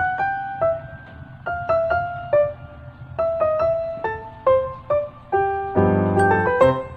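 Background piano music: a slow melody of single struck notes that ring and fade, with a fuller chord about six seconds in.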